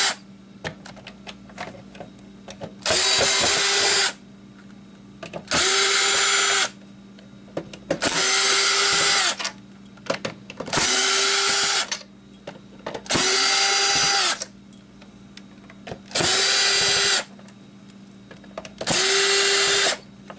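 A 20-volt cordless drill-driver spins case screws out in short runs of about a second each, seven times. Each whine climbs quickly to a steady pitch. Small clicks of screws and handling fall between the runs.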